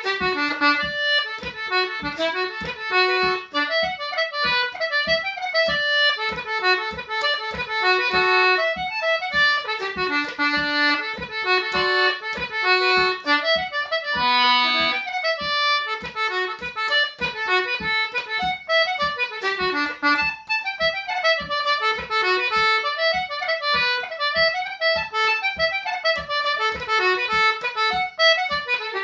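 Concertina playing an Irish reel solo in quick, even notes, with a brief held low note about halfway through.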